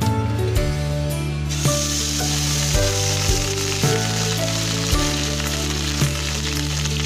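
A fish-egg mixture is poured into hot oil in a frying pan, and sizzling starts about a second and a half in and keeps going. Background music with a steady beat plays throughout.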